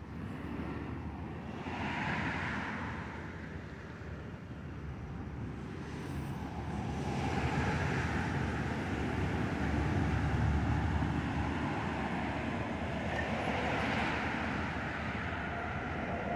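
Road traffic passing: vehicles swell up and fade away in turn, three times, the longest and loudest pass in the middle.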